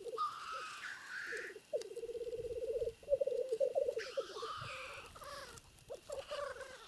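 Black grouse cocks displaying at a lek: a near-continuous fast bubbling, cooing song, broken twice by loud hissing calls, once right at the start and again about four seconds in.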